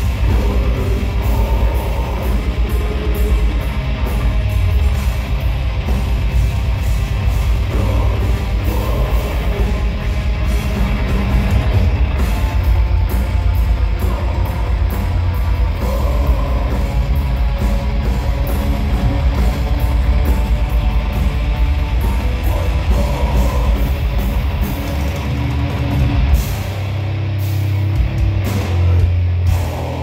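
Live heavy rock band playing loud: electric guitars over a drum kit with fast, dense drumming. About 25 seconds in the music changes to long held low notes.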